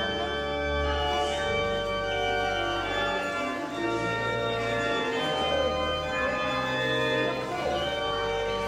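Church organ playing slow, sustained chords over a bass line that changes every second or two.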